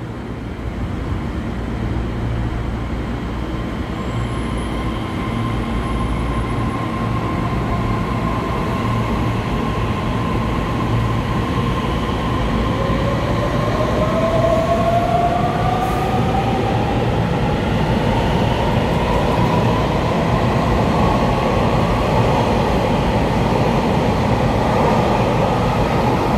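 Taiwan Railway EMU3000 twelve-car electric multiple unit pulling out of the station and accelerating past, its running noise growing steadily louder. From about halfway through, an electric whine climbs steadily in pitch as the train gathers speed.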